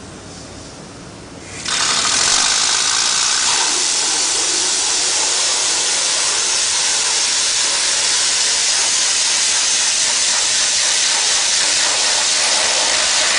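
Pneumatic air motor of a laboratory air mixer, quiet at first, then jumping about a second and a half in to a loud, steady hiss of exhausting compressed air as it runs at speed, stirring a bucket.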